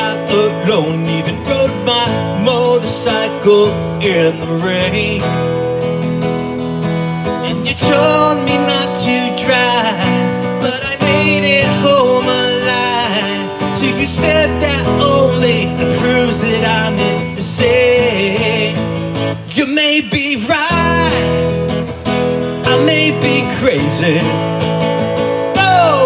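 Acoustic guitar music, strummed, with a wavering melody line above it; the low accompaniment drops out briefly about twenty seconds in.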